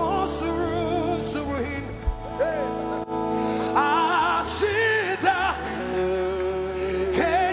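Live gospel worship music: a lead voice singing with wide vibrato over held instrumental chords and a bass line, the singing growing stronger about halfway through.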